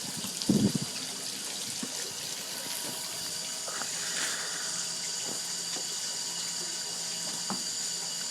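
Steady rushing hiss of a fire's flame, with a short low sound about half a second in and a few faint clicks.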